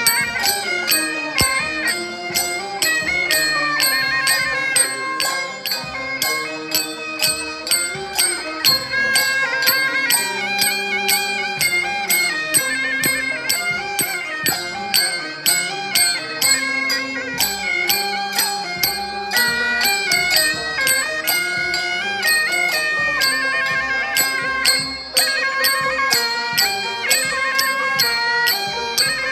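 Traditional Chinese folk music: a wind-instrument melody over a steady percussion beat.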